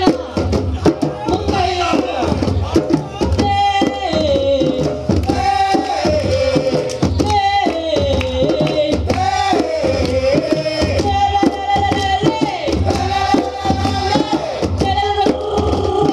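West African djembe drumming in a traditional Malinke rhythm, with dense hand strokes over a steady low drum beat. A singer carries a melody over it, holding notes and sliding between them.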